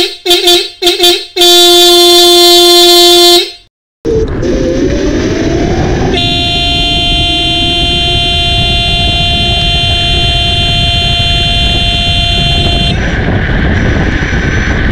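Scooter's 12 V low-tone disc horn, wired through a horn relay, gives four short toots and then one loud blast of about two seconds. After a brief silence come wind and road noise from a ride with a rising whine, then a long steady horn-like tone that shifts pitch near the end.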